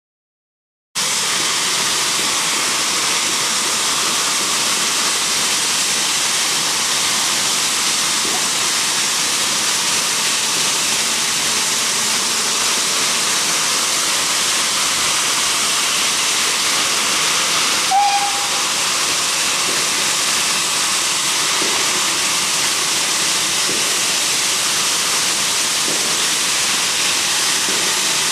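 Steam locomotive standing and blowing off steam: a loud, steady hiss that starts about a second in. A short high chirp sounds once about two-thirds of the way through.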